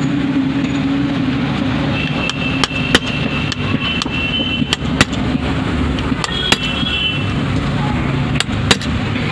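Steady rumble of street traffic, with about seven sharp metallic clicks scattered through as a small tool scrapes and taps at the contact points inside a Minda trumpet horn's housing. A faint high squeal comes twice, about two seconds in and again near six and a half seconds.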